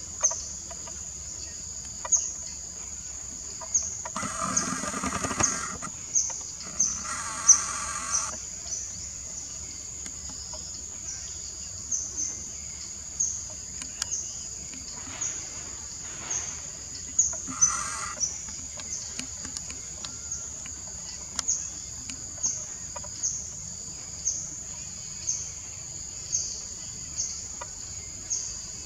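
Steady high-pitched insect chorus with a sharp chirp about once a second. Over it come two short animal calls about four and seven seconds in, and fainter ones later.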